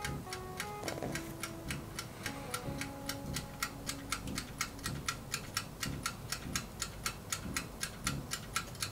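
Toaster oven's mechanical dial timer ticking steadily and rapidly, about four to five ticks a second, while it bakes, under soft background music.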